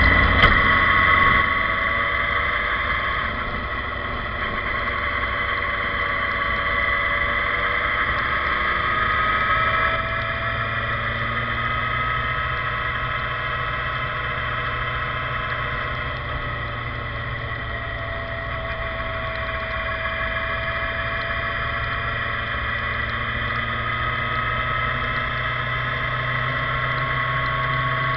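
Motor vehicle driving at steady speed on a wet road: the engine runs evenly, with its pitch drifting slightly as speed changes, over road and tyre noise.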